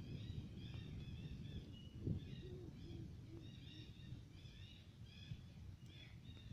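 Small birds chirping over and over above a low steady rumble of outdoor noise, with a single soft knock about two seconds in.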